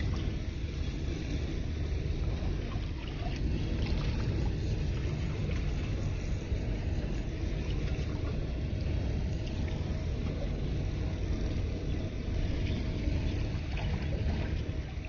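Steady low rumbling noise with no speech, with a faint steady tone running through it.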